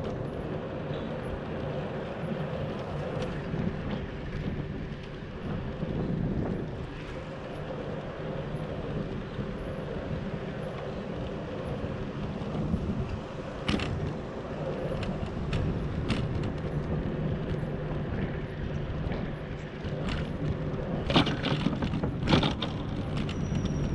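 A bicycle riding along city streets, heard from a camera on the bike: a steady rolling rumble of tyres on the road, broken by sharp rattles and clicks from the bike going over bumps, a few of them louder near the end on brick paving.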